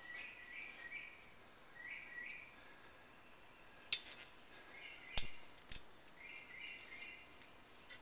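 A few light metallic clicks, three of them in the second half, as a cotter pin is worked into a brake caliper's retaining pin. Faint bird chirps are heard in the background.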